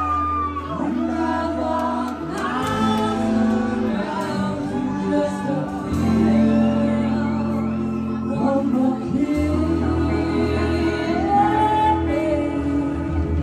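Live band playing a song, with singing over held bass notes.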